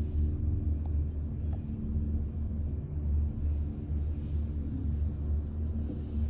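Low, steady rumble of a moving cable-car gondola, heard from inside the cabin.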